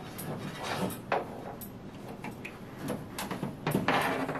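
Scattered light clicks and knocks of a power cable being handled and fed through a wall plate, with a longer scraping rustle near the end.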